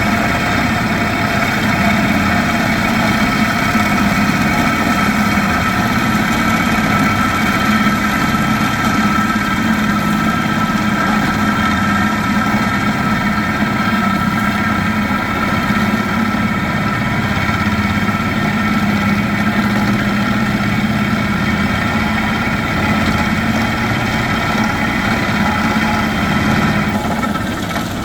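Heavy drilling rig for concrete and rock running steadily: a constant engine drone with a steady whine over it, easing slightly near the end.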